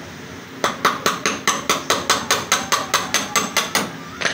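A hand tool working metal on an e-bike: a quick, even run of about fifteen sharp metallic clicks, about five a second, then one more click near the end.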